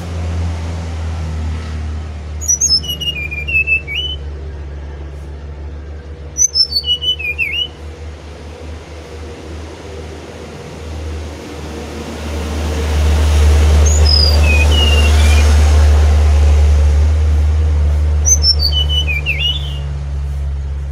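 Brown-chested jungle flycatcher singing short phrases of quick, clear whistled notes that step downward, four phrases spaced a few seconds apart. A steady low rumble runs underneath and grows louder in the middle.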